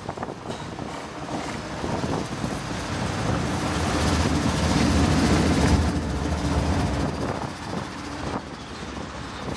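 Union Pacific diesel freight locomotives passing slowly at close range, their engines rumbling. The sound builds to its loudest about halfway through as the units go by, then eases as the flatcar and track inspection car roll past.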